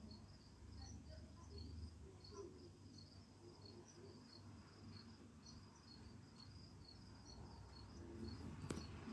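A cricket chirping faintly and steadily, about two short high chirps a second. A single sharp click near the end.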